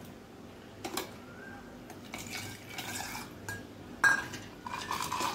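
Water poured from a steel bowl into a steel pot of whisked curd, splashing with a short rising pitch as it fills. A sharp clink about four seconds in as the steel bowl is set down on the stone counter.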